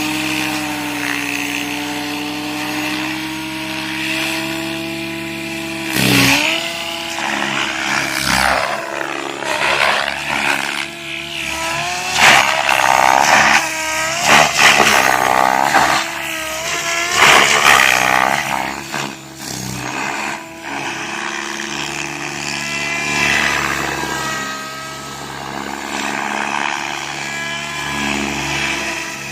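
Goblin 700 electric RC helicopter in flight: the steady whine of the motor and rotor head, then from about six seconds in repeated swells of main-blade whoosh and rising and falling pitch during 3D manoeuvres.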